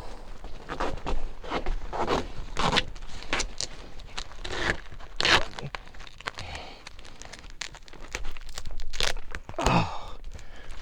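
Duct tape being pulled off the roll and torn in short irregular rasps, with crinkling and scraping as it is pressed onto the HVAC duct to seal its holes.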